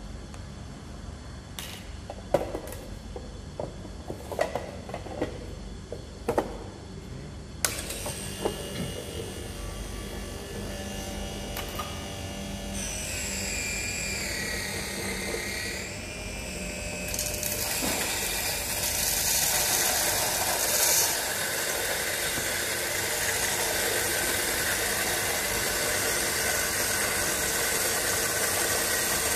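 A few light clicks and taps of cups and coffee beans being handled, then an electric coffee grinder switches on suddenly and runs. Its pitch wavers as whole beans are poured into the hopper, and it then grinds with a loud, steady noise that grows louder over the last third.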